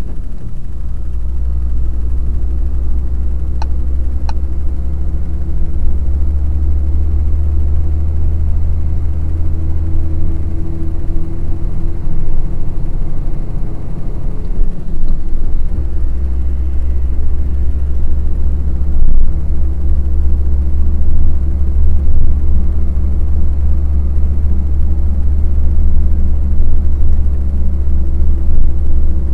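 Truck engine running steadily at highway speed, heard from inside the cab as a loud, constant low rumble mixed with road noise.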